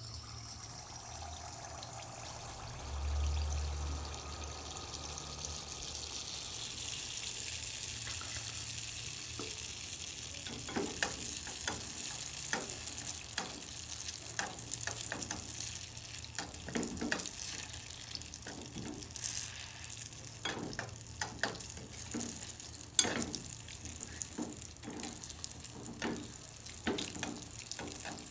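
Kavum batter sizzling in a small steel pan of hot oil, the hiss building over the first few seconds after the batter goes in and then holding steady. From about ten seconds in, frequent sharp clicks from the stick knocking and scraping against the pan as the cake is worked.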